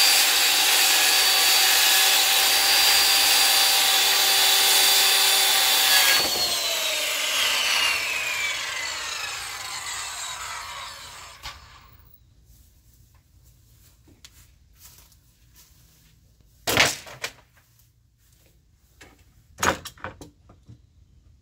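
Electric circular saw cutting lengthwise along a cedar slab at a steady pitch. About six seconds in the trigger is released and the blade winds down, its whine falling and fading over several seconds. Two sharp knocks follow near the end.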